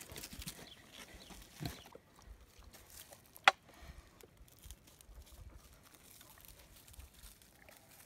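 Kunekune pigs drinking and nosing about in a shallow plastic water tub, faint, with a single sharp click about three and a half seconds in.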